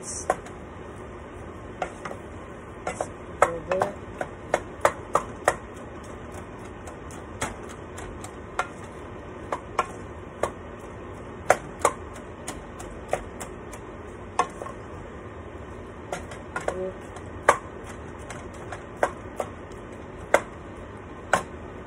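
Wooden spatula knocking and scraping against a nonstick pan as ground beef is stirred and broken up during sautéing, in irregular sharp taps about once a second over a steady background hiss.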